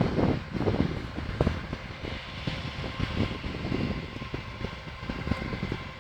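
Boeing 757 on its takeoff run: a steady jet-engine rumble, broken by many short, irregular thumps and rattles.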